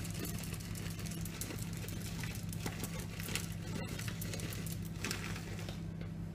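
Chocolate chips being scattered over cake batter: soft, irregular pattering and light rustling that thins out near the end, over a steady low hum.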